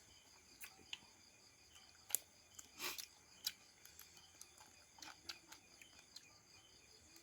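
Someone eating quietly: faint chewing with scattered small clicks and taps, and one brief louder rustle about three seconds in.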